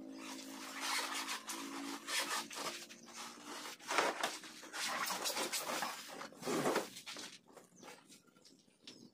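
Cardboard carton and packing being handled and pulled open: irregular scraping and rustling, loudest about four seconds in and quieter near the end.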